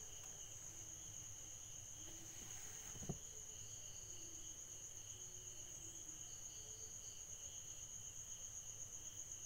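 Faint insect trill: a steady, high-pitched pulsing tone that continues throughout. There is a single soft knock about three seconds in.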